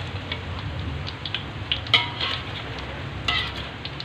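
Hot oil sizzling in a wok as fried corn fritters are lifted out with a wire spider strainer. There is a steady frying hiss with a few sharp clicks, about two seconds in and again a second or so later.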